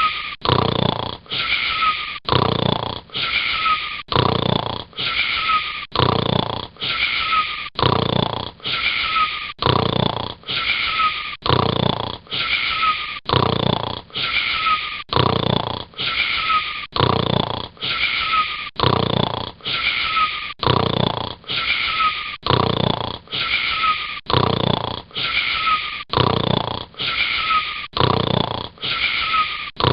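Steady rhythmic snoring: wheezy breaths a little more than once a second, each with a short whistle that drops in pitch.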